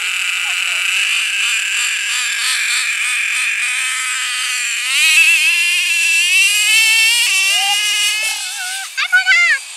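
HPI F4.6 two-stroke nitro engine of a Traxxas T-Maxx monster truck idling with a buzzy rattle, then revving up about halfway through, its pitch climbing and wavering as the truck accelerates away. Near the end come a few quick throttle blips.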